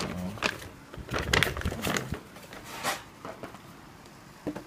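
Handling noises: a run of rustles and light knocks as small boxes and packaging are moved about. The knocks are loudest about a second and two seconds in, then die down.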